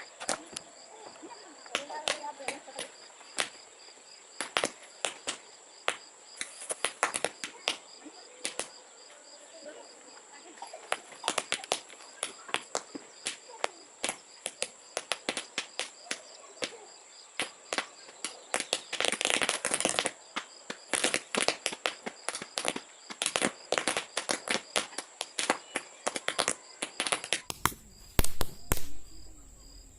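Toy paper roll caps going off one after another in a fast, irregular string of sharp pops, with a dense burst of pops about two-thirds of the way through.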